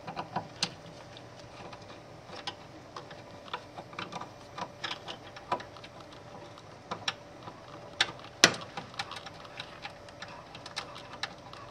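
Screwdriver backing out the single screw that holds a DLP television's projector lamp assembly: a run of small irregular clicks and ticks of metal on metal, with one sharper click about eight and a half seconds in.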